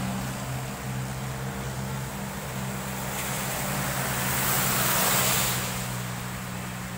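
Traffic on a rain-soaked road: about four seconds in a car passes close by, its tyres hissing on the wet asphalt, swelling and then fading. Under it a steady low engine hum and the even hiss of rain continue.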